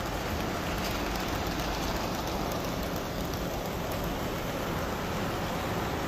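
HO scale model train running on the layout's track: a steady rolling rumble and fine clatter of small wheels on rail, over the background noise of a busy exhibition hall.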